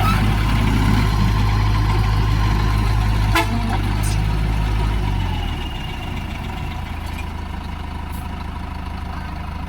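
Heavy diesel construction machinery engine running loud and steady, easing to a lower level about five seconds in. A single sharp knock comes about three and a half seconds in.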